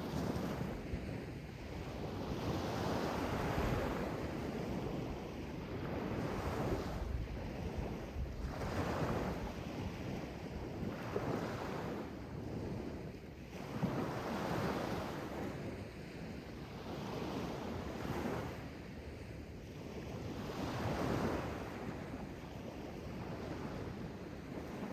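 Sea waves washing in one after another, a continuous rush of water that swells with each wave every two seconds or so.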